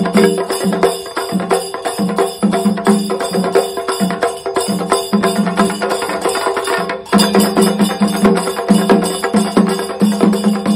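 A sinkari melam ensemble of several chenda drums, beaten with sticks in fast, dense rolls. The playing drops briefly about seven seconds in, then comes back louder.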